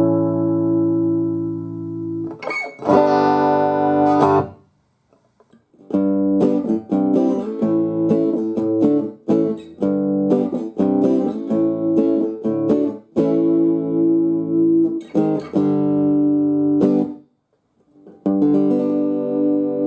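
Guitar played through a Roland BA-330 portable stereo amplifier: held, ringing chords and a stretch of quick picked notes, broken by two short pauses.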